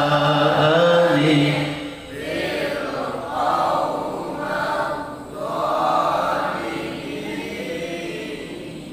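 A group of boys reciting the Quran together in the melodic tilawah style, their voices in unison: a held note breaks off about two seconds in, followed by a few swelling phrases that grow fainter near the end.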